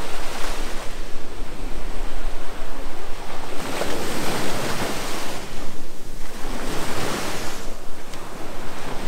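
Beach surf breaking and washing up the shore in a continuous rush that swells twice near the middle, with wind noise on the microphone.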